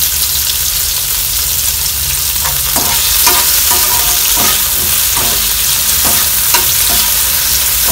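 Diced raw mango, onion and tomato sizzling in hot oil in a non-stick frying pan while a steel slotted spatula stirs them, scraping across the pan in a run of quick strokes from a couple of seconds in.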